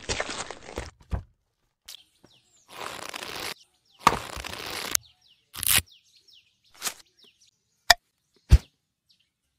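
About a second of rustling handling noise as wires are worked at a ceiling junction box. Then comes a run of edited-in sound effects in dead silence: two short swishes, several sharp cracks, and faint bird-like chirps.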